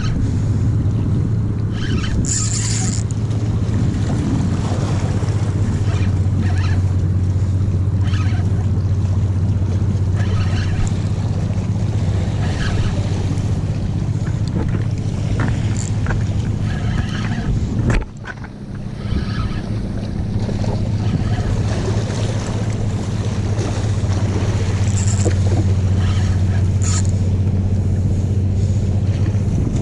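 Spinning reel being cranked steadily on a retrieve, a constant low gear whir. It stops suddenly about eighteen seconds in and picks up again a couple of seconds later.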